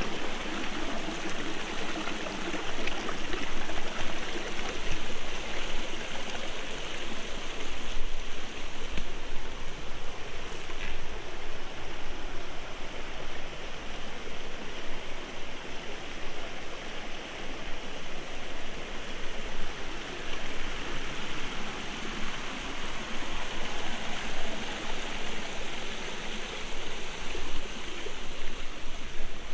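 Shallow rocky forest stream running over small cascades and riffles: a steady rush and babble of water.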